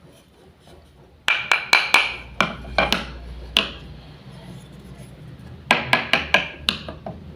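Wooden play-food toys clacking: sharp hard knocks in two quick runs, about eight, then after a pause about six more.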